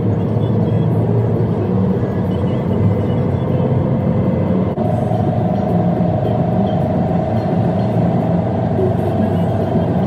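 Steady drone of a moving road vehicle, its engine hum jumping up in pitch about halfway through.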